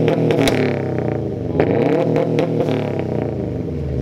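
Subaru WRX STI's turbocharged flat-four revved while the car stands still, heard from behind at the exhaust. The revs drop early on, climb again about one and a half seconds in, then fall back toward idle.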